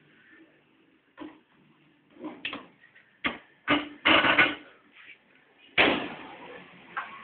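A small rock knocking and clattering on a concrete floor as a dog plays with it: a string of sharp knocks, the loudest coming in a quick cluster about four seconds in, and another near six seconds trailing off in a short scrape.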